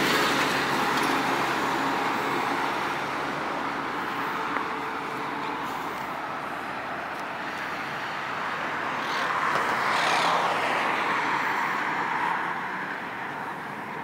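City road traffic: a city bus's engine runs close by near the start, its low hum fading after about three seconds, over a steady hiss of traffic. A vehicle passes with a swell in tyre and engine noise about nine to eleven seconds in.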